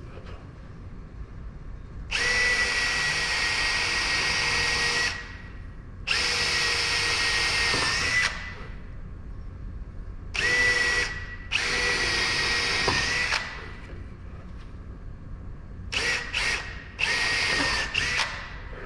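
Cordless drill with a 3/16-inch bit drilling holes through a wooden block for lag screws. The drill runs at a steady pitch in several runs of one to three seconds, then in a string of short bursts near the end.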